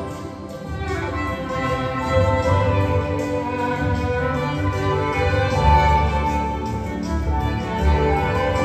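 Symphony orchestra playing an instrumental passage, its strings holding sustained chords over a low bass line.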